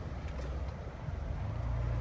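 Low, steady rumble heard from inside a minivan's cabin as a rail work train rolls slowly past on the adjacent track, swelling slightly near the end.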